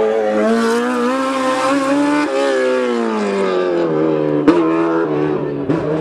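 Rally car's engine held at high revs, its pitch wavering up and down and then dropping lower. There is a sharp crack about four and a half seconds in.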